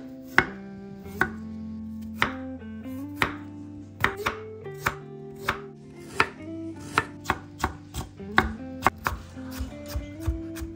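Kitchen knife chopping on a cutting board: about nineteen sharp strokes, roughly one a second at first and then quicker in the second half, over soft background guitar music.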